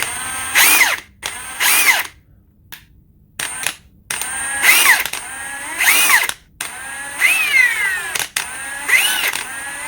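Ridgid High Torque cordless impact wrench spinning free, with no load, in a series of short trigger pulls. Its motor whine rises and then falls on each pull. The choppy, non-progressive trigger makes it spin up and then slow down instead of holding speed.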